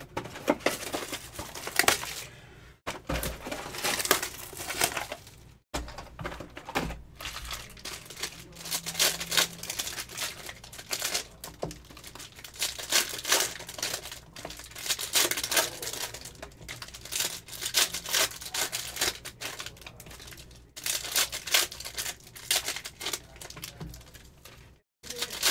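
2022 Select NFL hobby card packs and box wrapping being torn open and crinkled by hand, in irregular runs of crackling.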